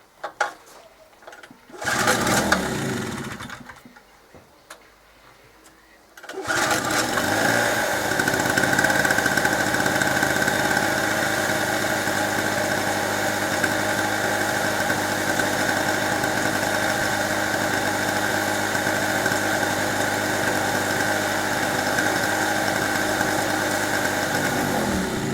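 Small two-stroke generator engine, a cheap Chinese clone of a Yamaha, being pull-started with its fuel tap off: on the first pull about two seconds in it fires briefly and dies away, then a little after six seconds it catches and runs steadily at an even speed on the petrol left in its carburettor.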